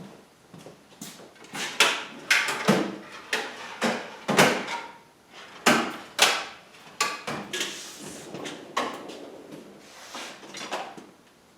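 Irregular knocks and clatter of metal table parts and hardware being handled during assembly, a dozen or more sharp impacts that thin out near the end.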